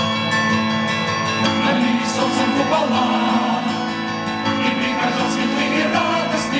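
Music from a live stage musical: sustained, layered instrumental chords with some singing.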